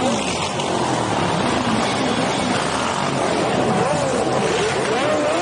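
Several superbike engines running in a steady drone, mixed with the shouting and calling voices of a large crowd that grow stronger near the end.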